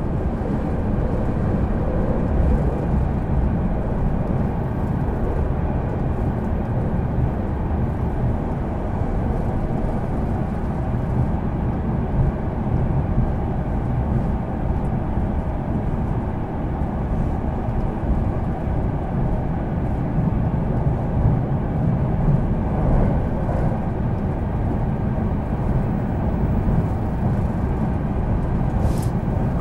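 Steady running noise heard inside the carriage of a Marine Liner rapid train at speed: an even, low rumble from the wheels on the track. A single sharp click sounds near the end.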